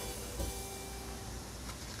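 Background acoustic guitar music. Near the end a faint crackling sizzle starts as minced pork goes into hot oil with chopped garlic.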